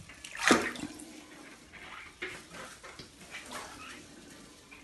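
Water splashing and sloshing in a tub as a cat is bathed by hand, with one louder splash about half a second in and softer irregular sloshes after it.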